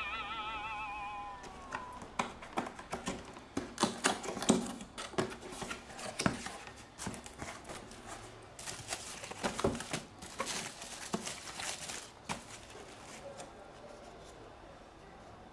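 Paper booklets, bubble wrap and foam packing being handled as a boxed air fryer is unpacked: irregular crinkles, rustles and crackles, busiest in the middle and quieter near the end.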